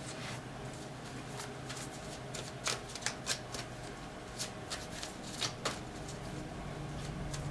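Tarot cards being shuffled by hand: a run of about eight sharp card snaps at irregular intervals.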